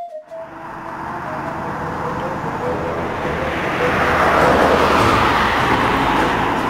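Road traffic noise: a car's tyres and engine swell steadily as it draws near, loudest about four to five seconds in, then hold.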